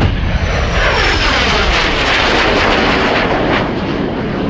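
Cessna A-37B Dragonfly's twin General Electric J85 turbojets going past in a flypast: a loud jet roar with a high whine that slides down in pitch as the aircraft passes, easing off towards the end.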